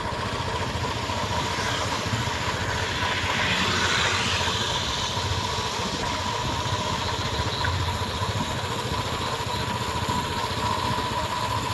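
Steady rushing road and wind noise with a motor vehicle's engine running underneath, heard from a vehicle travelling along a road; a thin steady tone sits over it. The rush swells briefly about three to five seconds in.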